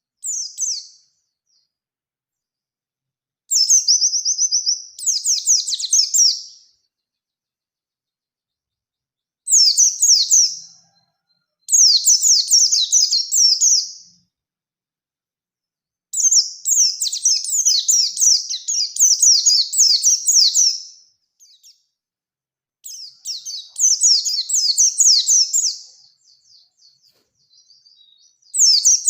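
Pleci (white-eye) singing about seven high phrases of rapid, rolling notes, each lasting up to about five seconds, with short pauses between them. This is the fast 'ngerol' lure song used to provoke a rival white-eye into singing.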